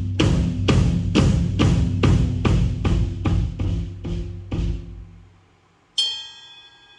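Drum kit struck in a steady run of about a dozen hits, roughly two a second, with low drum tones under a cymbal wash, tested during a sound check. The hits fade out about five seconds in, and a single ringing metallic strike follows about a second later.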